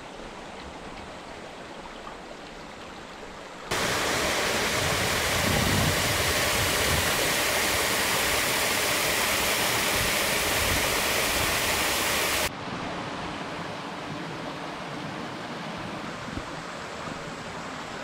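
Mountain stream water running over rocks and pebbles in a steady rush. About four seconds in it jumps abruptly to a much louder rush of water pouring through a narrow rock channel, and about twelve seconds in it drops back to a quieter flow over a shallow pebbly bed.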